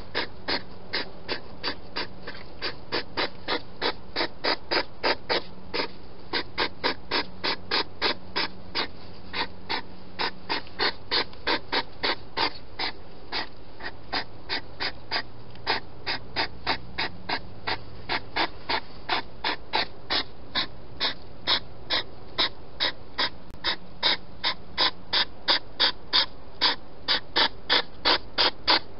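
Hedgehog eating close to the microphone: loud, regular smacking chews, about three to four a second, kept up throughout and growing louder near the end.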